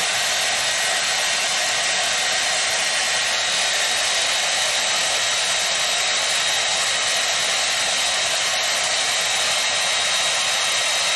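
A steady, unchanging rushing hiss, as from an appliance blowing air, with a faint high steady whine in it.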